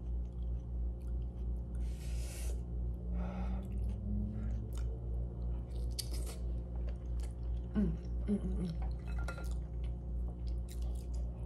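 Close mouth sounds of a person chewing a hot boiled potato from a seafood boil: wet chewing, clicks and lip smacks, with a few short hummed "mm"s of enjoyment, over a steady low hum.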